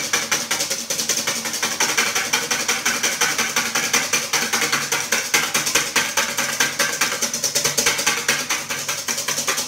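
Hand whisk beating cold cream in a stainless steel bowl: fast, even strokes clattering against the metal, several a second without a break, as the cream is whipped into firm chantilly.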